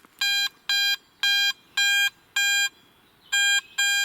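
Garrett AT Max metal detector's target signal: a string of about seven short, identical high-pitched beeps, one per sweep of the coil over a German cartridge case stood on end. The signal goes with a target ID of about 75.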